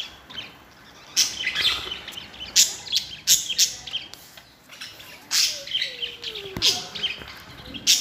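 Budgerigars chirping and chattering: short, sharp high calls in irregular clusters through the whole stretch.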